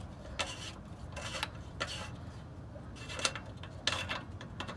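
A 7/8 open-end wrench clinking and scraping against the hex of an exhaust oxygen sensor in short, irregular strokes as the loosened sensor is unscrewed from the exhaust pipe.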